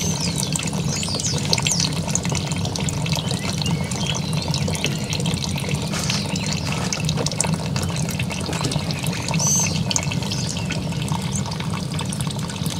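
Melted old-comb beeswax and condensed steam water running in a thin steady stream from a steam wax melter's outlet and splashing into a plastic bucket of liquid. A few faint high chirps sound over it.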